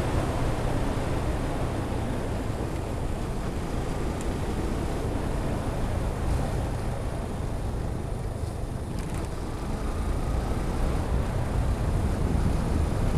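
Wind rushing and buffeting over a helmet-mounted camera microphone on a moving Yamaha FZ16 motorcycle, heaviest in the low end. A deadcat muffler fitted over the microphone does not keep it down at road speed. It eases a little about two-thirds of the way through, then builds again near the end.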